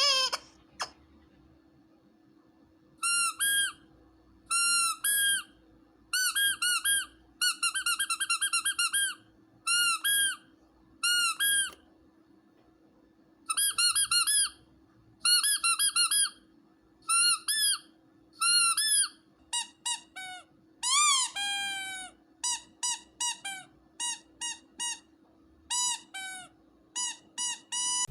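Rubber squeaky dog toy squeezed over and over, in quick bursts of two to six squeaks with pauses between. Toward the end the squeaks get shorter and lower, with one long drawn-out squeak near the middle of that stretch.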